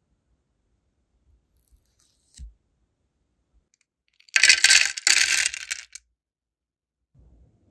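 Small flower-shaped sealing wax beads poured from a bowl into a clear plastic box, a dense clatter in two quick pours lasting about a second and a half. A soft knock comes a couple of seconds before it.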